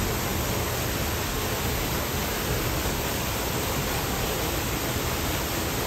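Steady rush of a waterfall pouring down a rock wall into a pool, an even, unbroken hiss.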